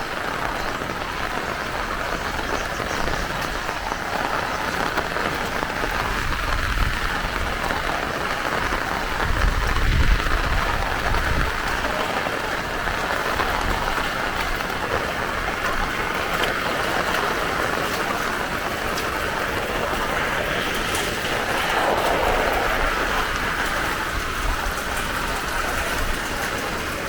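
Heavy rain falling steadily, a dense even hiss of drops on the ground. A low rumble swells briefly about ten seconds in.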